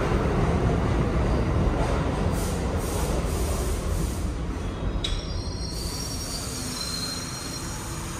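New York City subway train running, a low rumble that slowly grows quieter, with a brief high-pitched wheel squeal about five seconds in.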